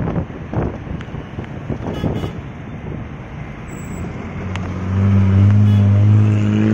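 Road and wind noise from a moving vehicle, then, about two-thirds of the way in, a loud steady low-pitched drone that holds to the end.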